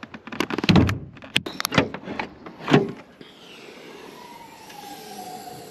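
Mercedes W203 C-Class bonnet being opened: the release lever pulled and the latch clicking free, then a run of clicks and knocks over about three seconds as the bonnet is unlatched and lifted. After that only a faint steady hiss remains.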